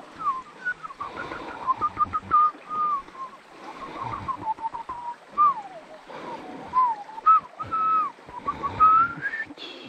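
A person whistling a tune of short and gliding notes. Running creek water and low thumps sound underneath.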